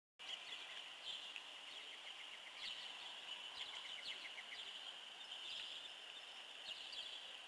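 Faint outdoor ambience of birds and insects: a steady high-pitched insect drone with quick runs of chirping trills over it.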